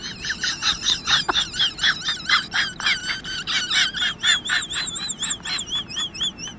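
An animal calling over and over in quick, even succession, about three or four high-pitched calls a second, each with a wavering, warbling pitch.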